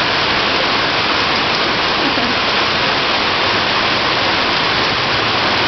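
Heavy rain pouring down steadily, a dense even hiss of water with no breaks.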